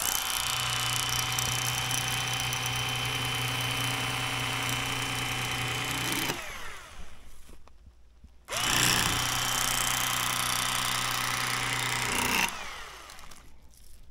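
Bass Pro Shops XPS cordless electric fillet knife running in two bursts, about six seconds and then about four, a steady motor buzz that winds down in pitch each time it is switched off. Its reciprocating blades are cutting the skin from a bass fillet.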